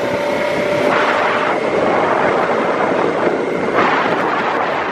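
Tiller outboard motor driving a small aluminium duck boat at speed, with a steady whine for about the first second, then wind buffeting the microphone over the motor and water noise.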